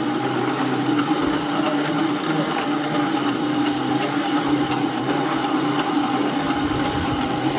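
Ransomes Ajax Mark IV 12-inch hand-push cylinder mower being pushed across the lawn. The reel spins against the bottom blade with a steady whirr as it cuts grass and throws the clippings into the grass box.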